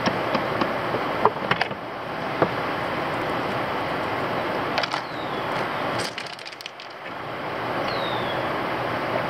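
Steady rushing background noise, with a few light clicks and knocks of metal parts being handled in the first couple of seconds as the outboard's lower unit is fitted.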